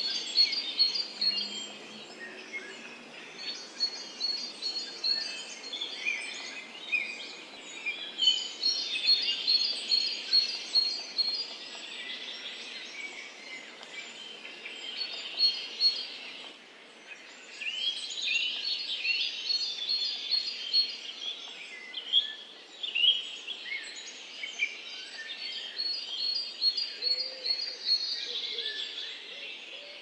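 A chorus of several wild birds singing and calling: quick high trills and short chirps overlapping over a faint steady hiss, with a brief lull about halfway.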